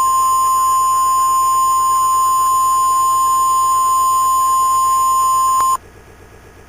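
Steady single-pitch emergency alert tone just above 1 kHz, the NOAA Weather Radio 1050 Hz warning alarm tone that signals an emergency alert message is about to follow. It cuts off abruptly near the end.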